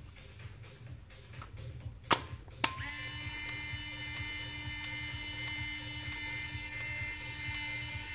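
The film door on the back of a Fujifilm Tiara Zoom compact 35 mm camera is snapped shut: faint handling ticks, then two sharp clicks about half a second apart as the door closes and latches. Right after, a steady sound of several held pitches begins and runs on.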